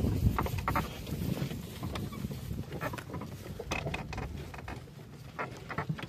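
Horses' hooves clopping at a walk: a run of short, uneven knocks over a low rumble.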